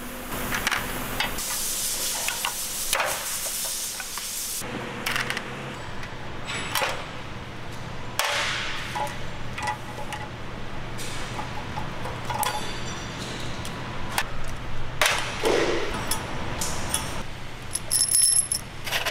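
Small steel valve-train parts from a BMW X3 engine's cylinder head clinking and clattering as they are picked out and handled, with scattered sharp clicks throughout and a hissy scraping stretch in the first few seconds. Near the end the removed engine valves clink together on a pile with a ringing metallic tone.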